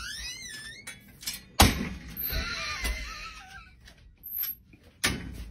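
Metal pet safety gate banging as a large dog pushes it open: a loud clank about a second and a half in and another near the end, with high gliding squeaks around them.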